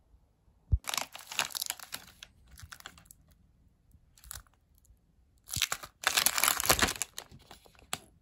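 Plastic snack wrappers crinkling as packs of corn jjondeugi are picked up and turned over in the hand. The crinkling comes in two bouts, the second longer and louder, with a soft thump just before the first.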